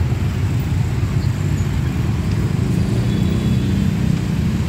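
Dense motorbike and scooter traffic: many small engines running together in a steady low rumble, with one engine's hum standing out about three seconds in.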